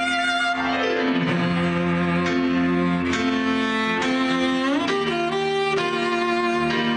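Cello and piano playing together. The cello slides down in pitch about a second in and slides back up around four to five seconds in, over sustained piano notes.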